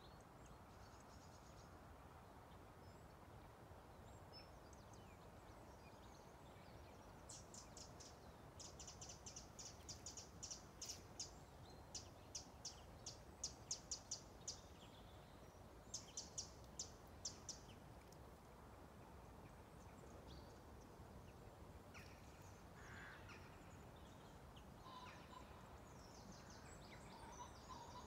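Faint bird calls over a quiet low background hum. In the middle come several bursts of rapid, sharp, high-pitched notes, several a second, and near the end a few lower calls.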